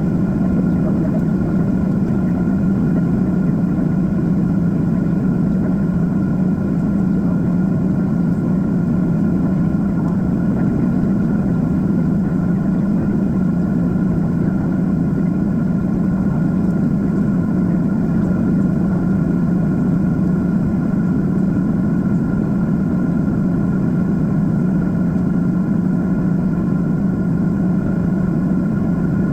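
Steady cabin noise of a Boeing 767-400 in its climb, a deep even rush from the twin turbofan engines and airflow, with a faint steady whine on top.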